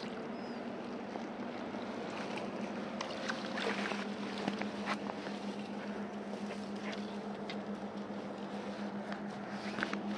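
Jacket fabric rustling against a body-worn camera, with scattered light clicks, over a steady low hum.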